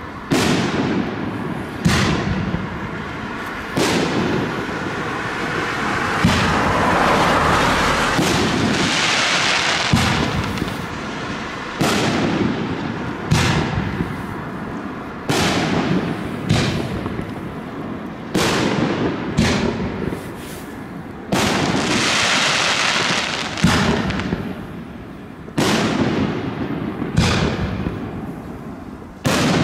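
Consumer firework battery (cake) firing shot after shot, a sharp bang every one to two seconds. A longer hissing rush fills two stretches, about a quarter of the way in and again about three quarters in.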